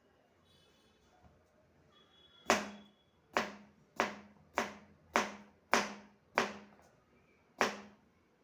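Kitchen knife chopping on a cutting board: eight sharp, loud chops at a steady, unhurried pace, each with a short ringing thud.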